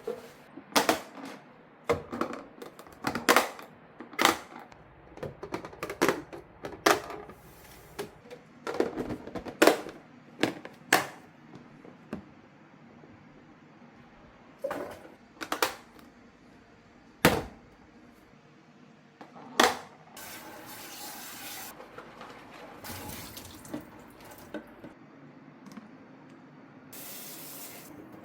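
Kitchen items being handled, a string of sharp knocks and clatters, then a kitchen tap running from about twenty seconds in, louder for a moment near the end.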